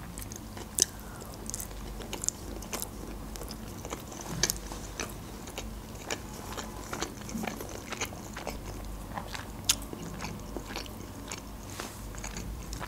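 A person chewing food, mouth close to the microphone: irregular wet mouth clicks and smacks, with a couple of sharper clicks about a second in and near the end.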